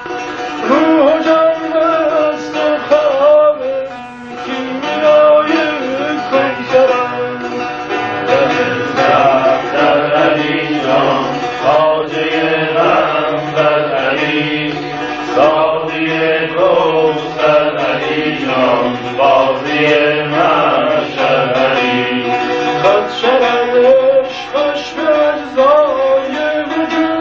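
Tanbur, the Kurdish long-necked lute, played solo: a running melody of quickly plucked and strummed notes.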